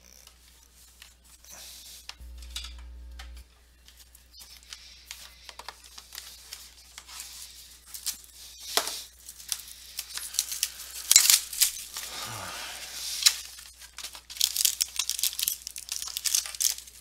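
Plastic shrink wrap being torn and crinkled off sealed trading-card boxes, in a run of short rips and crackles that gets busier from about eight seconds in. A brief steady electrical hum sounds about two seconds in.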